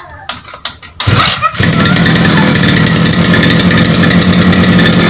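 Small brush-cutter (grass trimmer) engine started by hand: a few clicks, then about a second in it catches and runs loud and steady.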